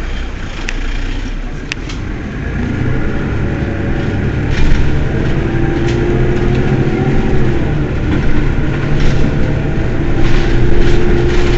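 Mercedes-Benz Citaro city bus engine running while the bus stands still, growing louder about two and a half seconds in, when a steady whine joins the rumble.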